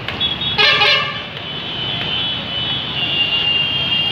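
Vehicle horns honking over the low rumble of running engines in traffic: a loud short blast about half a second in, then a thin high horn held for most of the rest.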